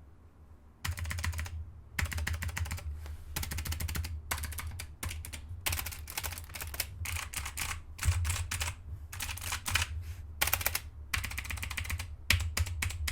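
Fast typing on a SteelSeries Apex 5 keyboard with hybrid blue switches: dense runs of clicky keystrokes in bursts, with short pauses between them, starting about a second in.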